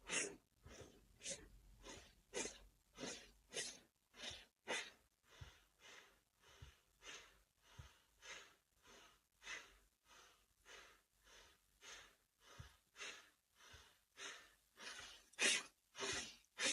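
A woman breathing forcefully and rhythmically through the nose, a little under two breaths a second, in time with a yoga spinal flex; the breaths get a little louder near the end.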